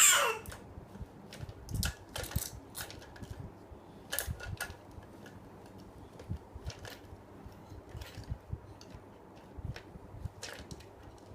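Irregular light clicks and taps, with a few soft low thumps in between.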